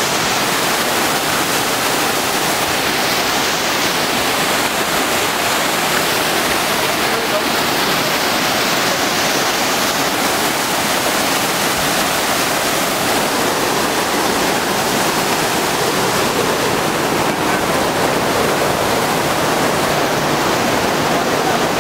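Water gushing from openings in the concrete walls of a canal lock and cascading over a ledge into the lock chamber: a steady, loud rush of falling water.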